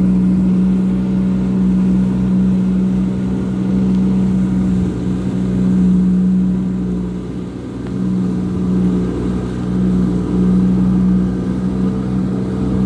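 Jet ski engine running steadily under way, a loud even drone that dips briefly a little past halfway before picking back up.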